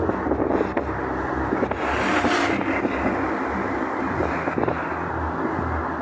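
Continuous low rumbling with a rushing noise over it, swelling briefly about two seconds in: the sky noise presented as a skyquake.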